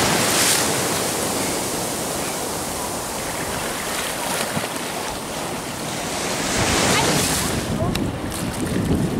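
Ocean surf breaking and foaming whitewater rushing in the shallows, a steady wash with another wave surging through about seven seconds in.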